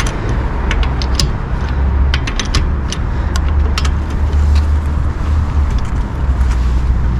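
Steady low engine-like rumble throughout, with scattered light metallic clicks and taps from hands and tools working on a car's front suspension and steering parts.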